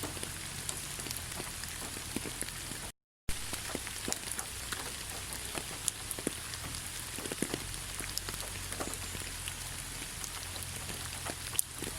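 Rain falling steadily, with many individual drops ticking on a surface. The sound drops out completely for a moment about three seconds in.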